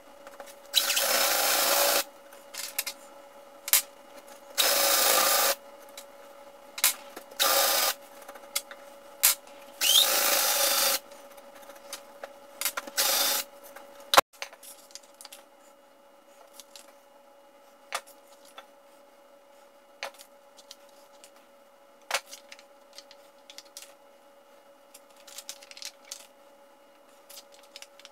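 Power drill with a spade bit boring into the end of a wooden axe handle in five short bursts, each a second or so long. After that, only faint scattered clicks of handling.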